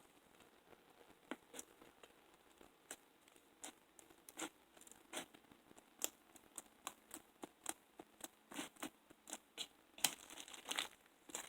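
Slime being mixed and squished by hand: irregular sharp clicks and pops, a few a second, starting about a second in and coming faster near the end.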